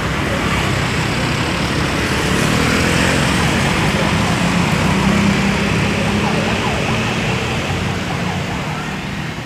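Road traffic noise: engines running and tyres on the road as vehicles crawl past in congested traffic, with a steady low engine hum that rises a little in the middle.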